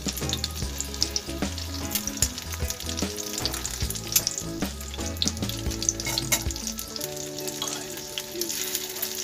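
Egg-coated slices of tikoy (sticky rice cake) shallow-frying in hot oil in a small pan: a steady sizzle full of small, irregular crackles and pops.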